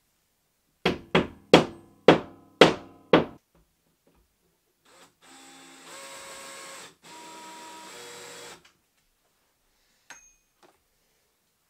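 Six quick, loud hammer blows in a row, each ringing briefly. Then a DeWalt cordless drill runs in two spells of about two seconds each, with a short break between them, and a single click follows near the end.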